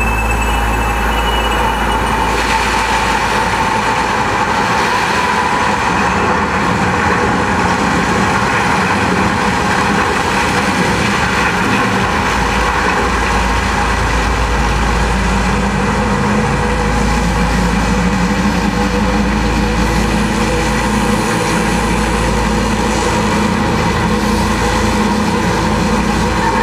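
The projection show's soundtrack played over loudspeakers: a loud, steady, dense rumble of sound effects rather than a tune, with the deepest rumble dropping out for several seconds in the first half and then returning.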